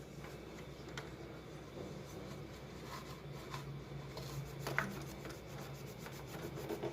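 Light rubbing and scratching of a cloth wiping a sewing machine's body, with a few small clicks and a faint low hum underneath.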